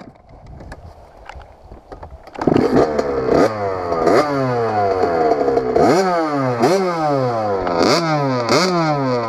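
Two-stroke engine of a 2000 Kawasaki KX80 dirt bike, quiet at first, then coming in loud about two and a half seconds in and revved over and over, its pitch jumping up and dropping back a little more than once a second.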